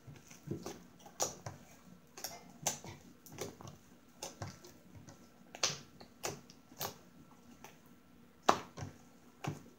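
Homemade glue slime being kneaded and stretched by hand, giving irregular sharp pops and clicks, one or two a second, with a few louder pops in the second half.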